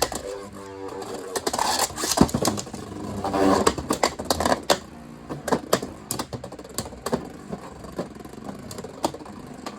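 Two Beyblade spinning tops, a custom 3D-printed Beyblade and a Beyblade X top, whirring around a plastic stadium just after launch, with many sharp clacks as they strike each other and the stadium walls.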